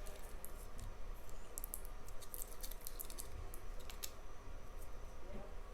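Faint, irregular light clicks and ticks from small parts of an opened selfie drone being handled.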